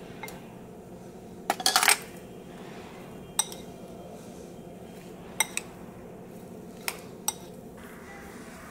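Metal spoon clinking against a ceramic bowl while mashing boiled potatoes: a quick run of clinks about a second and a half in, then single clinks every second or two.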